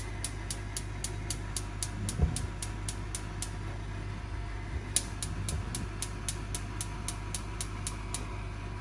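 Hoover gas oven's spark igniter clicking rapidly, about five clicks a second, while the knob is held in to light the oven's gas. The clicking pauses about three and a half seconds in, then starts again for about three seconds, over a steady low hum.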